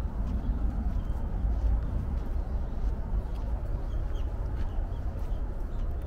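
Outdoor ambience: a steady low rumble with a few faint, short bird chirps scattered through it.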